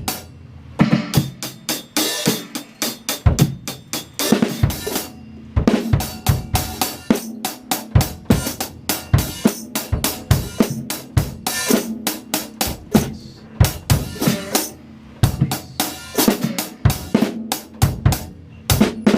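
Drum kit played in a 16th-note groove: steady hi-hat with bass drum and snare, and a syncopated bass-drum "hiccup" dropped in at the very last moment before the beat. The hi-hat is played too lightly, in the teacher's judgment. The playing stops briefly a few times.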